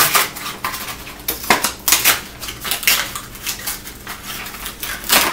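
Paper-and-card retail packaging being torn open and crumpled by hand: an irregular run of crackles and rips.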